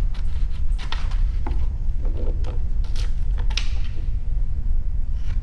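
Scissors cutting through a sheet of paper: a scattered series of short snips and paper crackles, over a steady low rumble.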